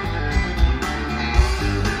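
Country-rock band playing live: electric guitar over a steady drum beat with a thumping kick drum, heard from within the festival crowd.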